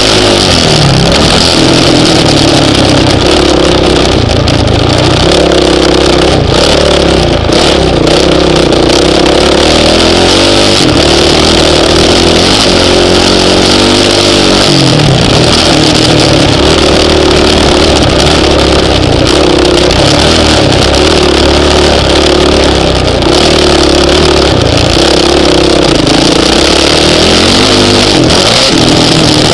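Honda CRF450X dirt bike's single-cylinder four-stroke engine, loud and close, revving up and down over and over as the throttle is opened and closed while riding.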